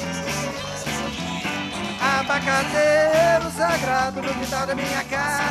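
Live rock band: electric guitars and bass guitar playing over a steady beat, with a bending melodic line rising out of the band from about two seconds in.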